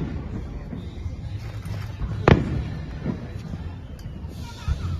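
Aerial fireworks bursting in the distance: a loud sharp bang about two seconds in, with a smaller bang a second later and fainter pops around it.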